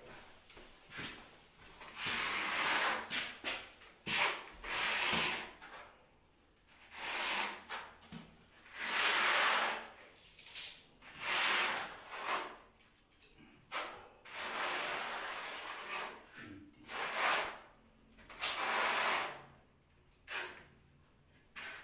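A steel notched trowel scraping tile adhesive onto a wall, in a series of back-and-forth strokes about a second long each, with short pauses between them.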